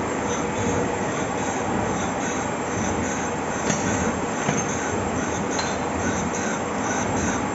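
Gear grinding machine with an abrasive wheel working on gear teeth: a steady, dense metallic grinding noise with a high hiss that pulses about twice a second, and two brief clicks near the middle.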